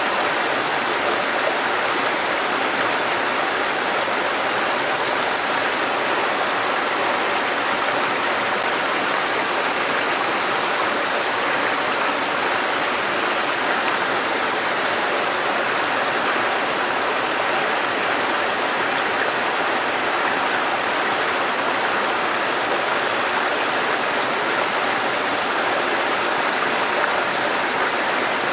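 A shallow river babbling over stones in a steady, even rush of running water.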